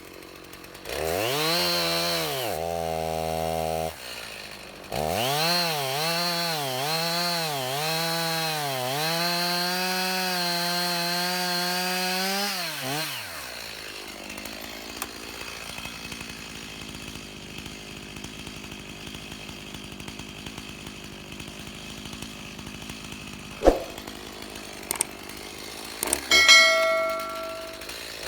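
Warmed-up Stihl Farm Boss chainsaw running at high revs in repeated surges, its engine pitch dipping and climbing again. There is one run of a few seconds, a brief drop, then a longer run before it shuts off about halfway through. A quieter stretch follows, with a sharp knock and a short ringing clank near the end.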